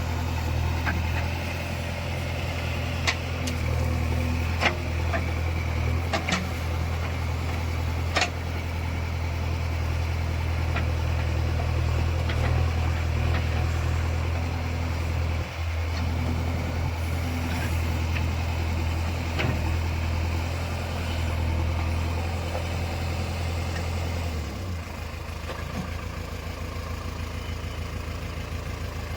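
JCB 3DX backhoe loader's diesel engine running steadily at low revs, with a few sharp knocks in the first several seconds. The engine note drops slightly about twenty-five seconds in.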